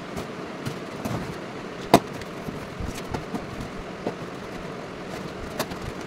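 A cardboard shipping box being opened by hand: packing tape slit with a box cutter, the flaps pulled open and the smaller boxes inside handled, with rustling and scattered knocks and clicks, the sharpest about two seconds in.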